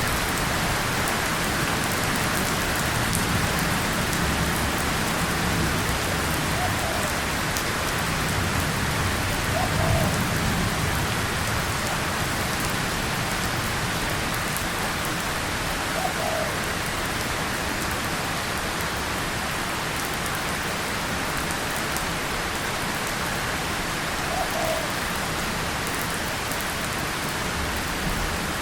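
Steady rain falling on a tin surface and leaves. A low rumble of distant thunder swells about ten seconds in, then fades.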